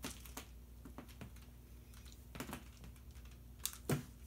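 Scattered light clicks and taps from a cat pawing at a ball-on-a-stick toy, the loudest near the end, over a faint steady low hum.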